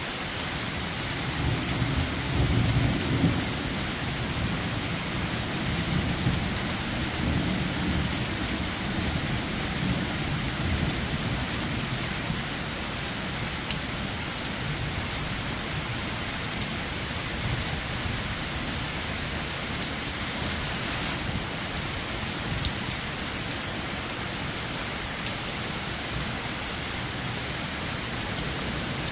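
Steady heavy rain with a roll of thunder that is loudest about two to three seconds in, then rumbles on more faintly and dies away after about ten seconds.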